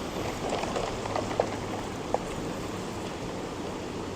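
Plastic toy trailer truck loaded with toys being moved along, giving a few light clicks and knocks over a steady background hiss.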